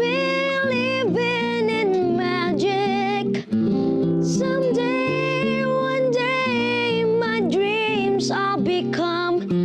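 A high voice singing a slow melody in long held notes over strummed acoustic guitar chords.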